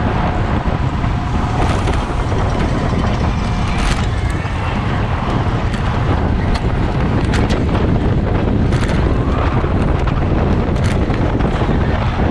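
Wind buffeting the microphone of a bicycle-mounted camera at racing speed, loud and steady, with several short sharp clicks scattered through it.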